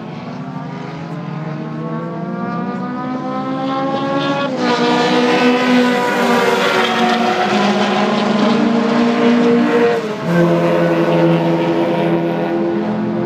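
A Porsche 911 race car's engine accelerating hard past, its pitch climbing steadily with a sharp drop at each of two upshifts, about four and a half and ten seconds in. It is loudest in the middle as the car goes by.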